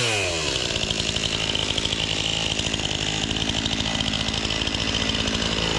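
Two-stroke chainsaw dropping from a quick rev to a steady idle at the start, then idling evenly with a fast, regular pulse.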